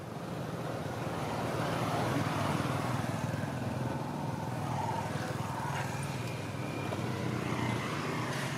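Steady low rumbling background noise, growing slightly louder about a second in.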